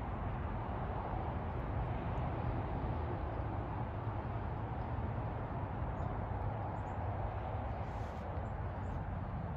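Steady rushing noise of flowing river water, with a low rumble underneath and no break or change.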